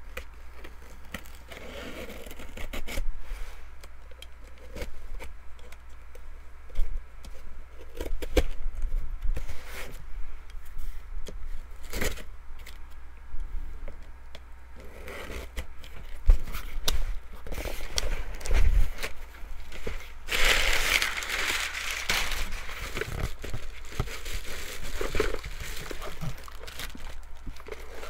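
Packaging being opened and handled by hand: scattered scrapes, clicks and crinkling, with a louder stretch of tearing and rustling about twenty seconds in.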